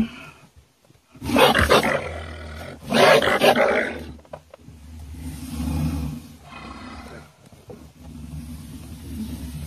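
An animal caught in a log box trap roars loudly twice, about one and three seconds in, then keeps up a lower growling.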